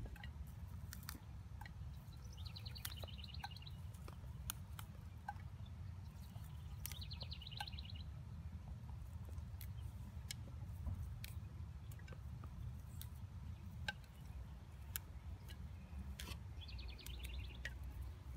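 A small songbird trilling three times, each a quick trill about a second long, over a faint steady low outdoor rumble. Scattered small clicks and snaps come from fiddlehead fern shoots being snapped off by hand.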